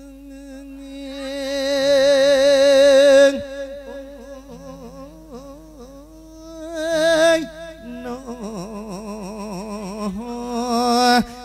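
A monk singing a drawn-out Isan-style lae (chanted Buddhist sermon) through a microphone, in long held notes with a wavering vibrato and slow glides between pitches. The voice swells loudest about two to three seconds in, again near the middle, and rises once more near the end.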